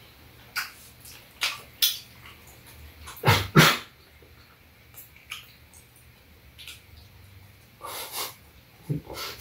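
Short, sharp huffs of breath and mouth noises from people eating cheese toast, with no words. The loudest is a close pair of voiced huffs about three and a half seconds in.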